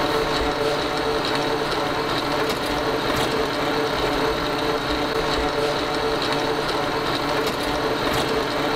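A mortar mixer's motor running steadily: a constant hum with a high whine above it, and a few faint clicks.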